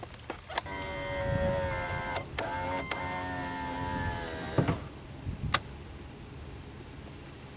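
Small electric motor whirring for about four seconds, with two brief breaks, dropping slightly in pitch just before it stops.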